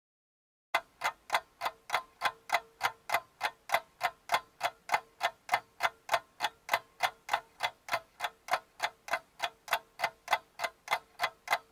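Clock ticking quickly and evenly, about three ticks a second, over a faint steady hum. It starts sharply just under a second in.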